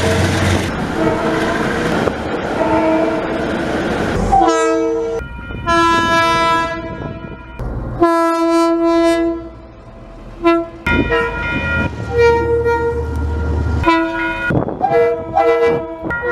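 A run of New Zealand diesel locomotive air horns cut together. The first horn sounds for about four seconds over the loud rumble of a moving train. It is followed by several separate blasts of a few seconds each, every one a chord of several notes, and a few short toots near the end.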